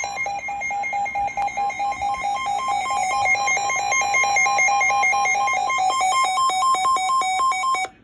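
Several NOAA weather alert radios, a Midland among them, sounding their warning alarms together: fast repeating beeps over a steadier high tone, signalling a severe thunderstorm warning. The alarms cut off abruptly near the end.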